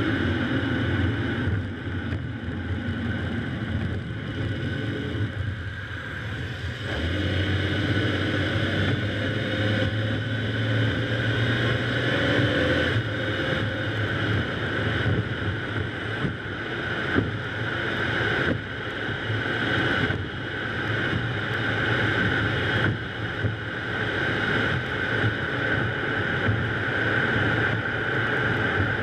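Steady road noise from a car driving on a wet road: tyre hiss with a low engine hum and some wind noise on the microphone. One short knock a little past halfway.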